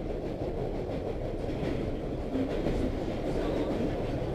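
Subway train car in motion, heard from inside: a steady low rumble of wheels on rails with faint squeaks and rattles.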